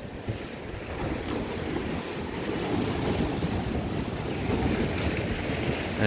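Rough sea surf breaking and washing against a concrete seawall in a continuous roar of noise, swelling a little in the middle, with wind buffeting the microphone.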